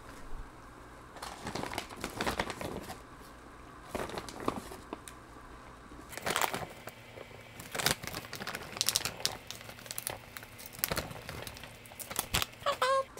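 Plastic rice cake packaging crinkling and rustling in irregular bursts as the tteokbokki rice cakes are pulled out of the bag.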